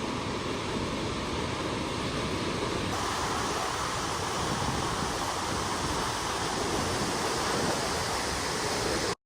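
Steady rush of fast-flowing river water, cutting off suddenly near the end.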